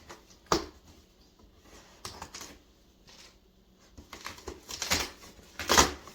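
A package being opened by hand: a sharp scrape about half a second in, then a few scrapes and rustles of the packaging, growing busier and loudest near the end.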